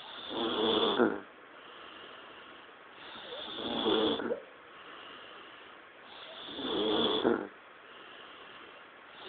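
A man snoring in his sleep: three loud snores about three seconds apart, each lasting about a second and cutting off sharply.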